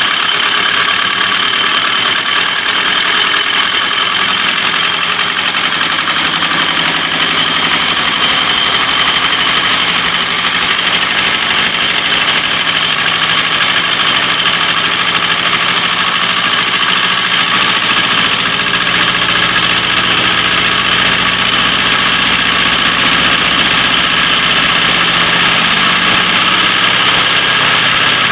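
Homemade compressed-air engine prototype running steadily on shop air, with a fast, even mechanical chatter that holds the same pace throughout.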